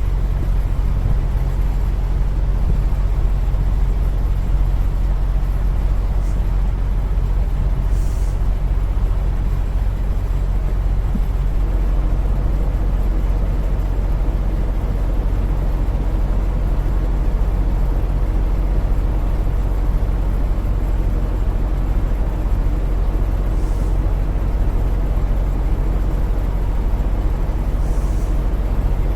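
Steady low drone of an idling semi-truck's diesel engine, heard from inside the cab, with a few faint short hisses.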